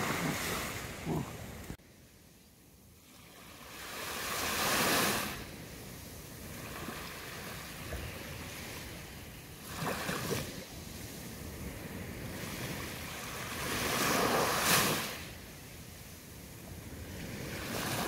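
Small sea waves washing up onto a sandy beach, the hiss of surf swelling and falling back three times, about every five seconds.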